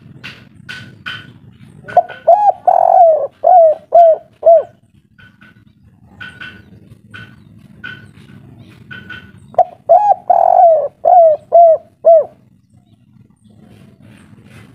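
Spotted dove (derkuku/tekukur) cooing: two song phrases several seconds apart, each a run of short rising-and-falling coos with one longer coo in the middle. It is the 'kuk 3' song type that Indonesian keepers prize.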